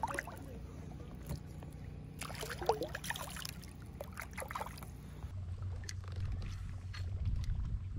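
Light water splashing and trickling as a largemouth bass is released by hand into the river beside a kayak. The splashing is busiest a couple of seconds in.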